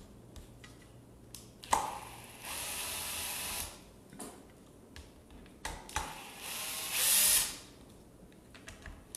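Cordless drill-driver running in two short bursts, each about a second, driving screws into a circular saw's motor housing, with a few sharp clicks between the runs.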